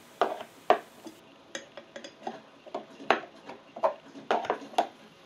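A hex key clinking and clicking against the central blade bolt and the steel blade of a garden shredder as the bolt is unscrewed: a string of irregular light metal clicks, a few sharper than the rest.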